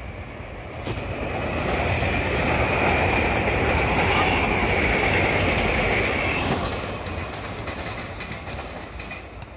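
SEPTA Regional Rail electric multiple-unit train passing close by on the tracks. Its rumble and wheel clatter build over the first couple of seconds, with a high steady tone above them for a few seconds, then fade as the train draws away.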